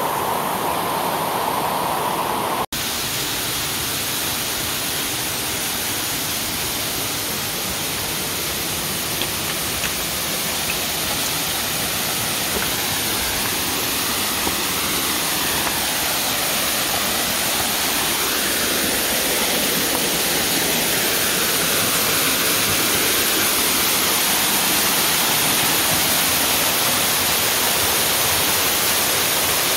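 Waterfall rushing and splashing onto rock, a steady, loud rush of falling water, with a brief dropout about three seconds in where the recording cuts.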